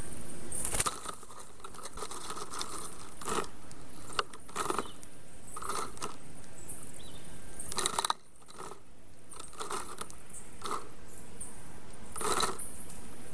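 Sticks knocking, cracking and scraping as a black stork pulls and rearranges branches in its nest: a dozen or so sharp knocks at irregular intervals, the loudest about a second in and again about eight seconds in.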